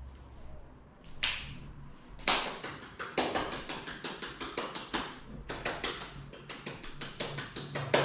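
Rapid light hand claps and taps calling a puppy over, with quick small clicks like puppy claws on a tiled floor. The sound starts about a second in and runs as a fast run of sharp taps, several a second, with a few louder claps among them.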